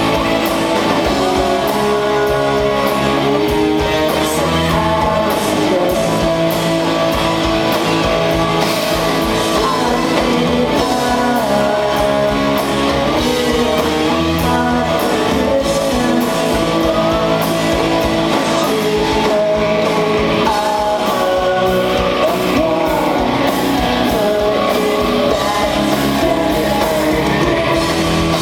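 Live rock band playing a song in a hall: electric guitars, drums and a singing voice, all at a steady loud level.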